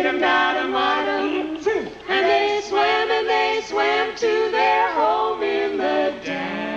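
Two women and a man singing together in harmony at a quick pace, the voices to the fore; near the end they hold one long note.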